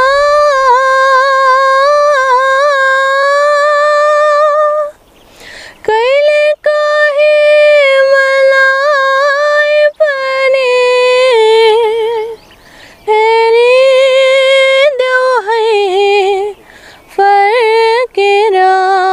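A teenage girl singing unaccompanied: long held notes with quick ornamental turns, in several phrases broken by short breaths.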